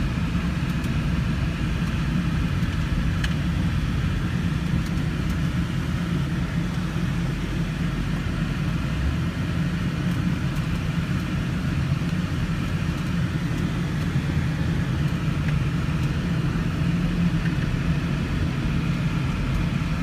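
Steady low engine and road drone inside the cabin of a 2002 Ford Thunderbird cruising at about 40 mph, its 3.9-litre V8 turning around 1,500 to 2,000 rpm.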